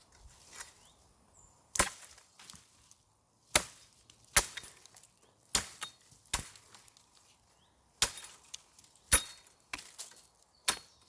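Ontario Bushcraft machete chopping dry spruce wood, about eight sharp strikes at uneven intervals, some in quick pairs.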